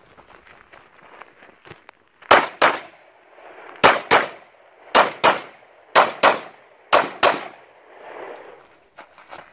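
Handgun fired in five quick double-taps, ten shots in all, the two shots of each pair about a quarter second apart and the pairs about a second apart, starting about two seconds in. Faint footsteps on dirt before the first shots.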